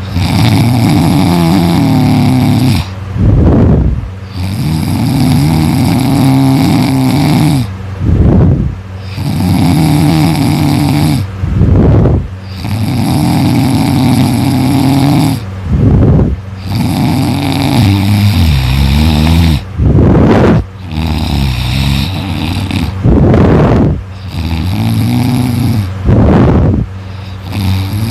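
A person snoring loudly in a steady rhythm: a long, pitched snore of about three seconds, then a short, sharper breath, repeating every three to four seconds.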